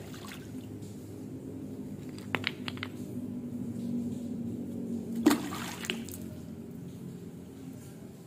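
Small blocks of ulin (Borneo ironwood) splashing into a water tank: a small splash at the start and a louder splash about five seconds in. A few sharp clicks come a little after two seconds in.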